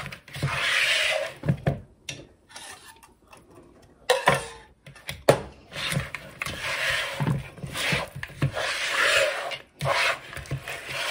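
A silicone spatula scraping around a mixing bowl, tossing baked chicken wings in a sticky barbecue-honey sauce: repeated swishing strokes, with a pause of about two seconds a couple of seconds in.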